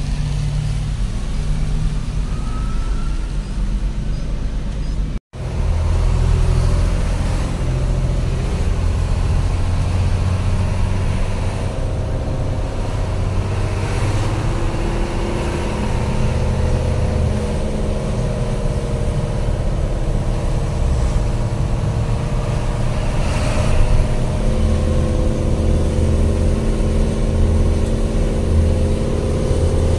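Truck engine running with road noise, heard from inside the cab while driving; the engine note shifts up and down with speed. The sound cuts out for an instant about five seconds in.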